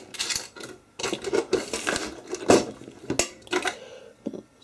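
Small diecast model parts being handled: irregular clicks, taps and light clattering of little metal and plastic pieces, with some rustling between them.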